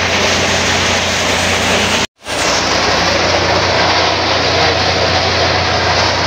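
Dump truck's diesel engine running steadily at idle: a low steady hum under a broad hiss, cutting out for a moment about two seconds in.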